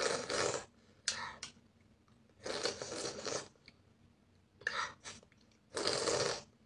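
Close-up mukbang eating sounds: about five short bursts of crunching and chewing, each under a second, with quiet gaps between.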